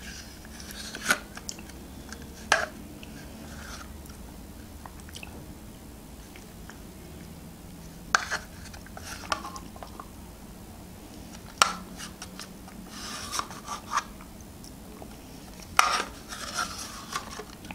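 Metal teaspoon clicking and scraping against a thin plastic yogurt cup: a handful of sharp clicks a few seconds apart, with short bursts of scraping, along with mouth sounds of eating spoonfuls of yogurt.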